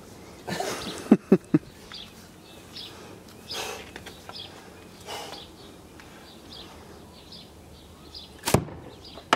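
A slingshot with Alliance flat file bands shooting a .75-calibre lead ball: one sharp snap of the bands on release near the end, with a second knock just after. A few sharp clicks about a second in, and faint bird chirps throughout.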